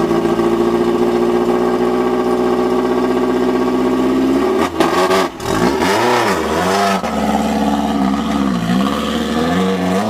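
Off-road race buggy's engine holding a steady note, then revving up and down several times from about halfway through.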